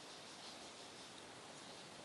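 Near silence: faint steady outdoor hiss, with a few faint, brief distant bird chirps.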